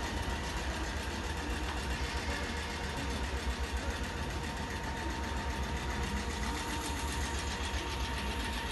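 South Western Railway electric multiple unit running along the platform road, a steady rumble of wheels and running gear with a thin steady hum above it.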